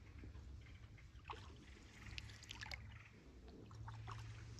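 Canoe paddle strokes in calm water: quiet dips and water dripping off the blade, in a few short clusters.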